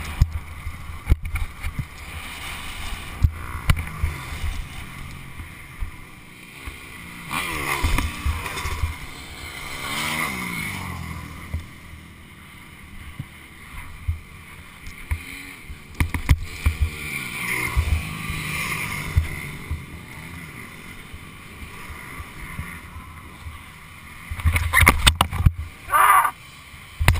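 Dirt bike engines passing by on a race trail, their pitch gliding down as they go past, over gusty wind noise on a helmet-mounted camera's microphone. A louder burst of noise comes near the end.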